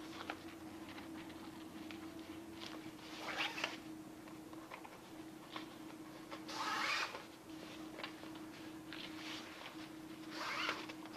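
Bungee cord being drawn through the nylon webbing tabs of a buoyancy wing, with the nylon fabric rustling and scraping as it is handled. Three longer rasping swishes as the cord is pulled through come a few seconds in, about seven seconds in and near the end.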